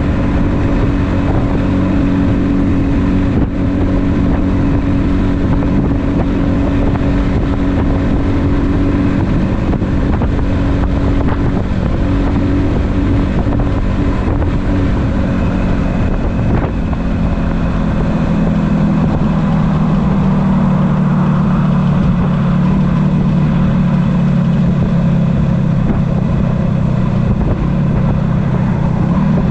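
1976 Yamaha RD400's two-stroke parallel-twin engine running as the motorcycle is ridden, with wind rushing past. The engine note drops to a lower, steadier pitch a little past halfway.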